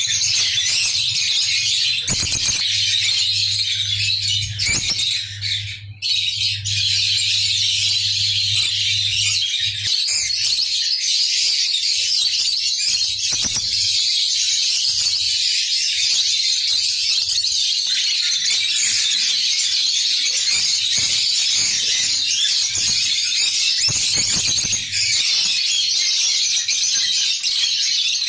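A flock of caged peach-faced lovebirds chattering nonstop, a dense tangle of shrill squeaks, chirps and squawks that breaks off briefly about six seconds in. A low steady hum runs under the first third.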